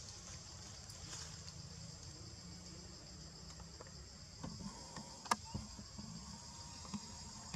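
Steady high-pitched insect chorus droning in the forest, with a low rumble underneath. A few soft ticks come in the middle, and one sharp click about five seconds in.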